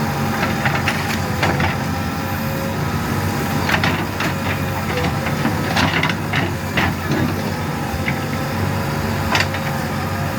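JCB 3DX Plus backhoe loader's diesel engine running steadily under work, with sharp knocks and clatters now and then.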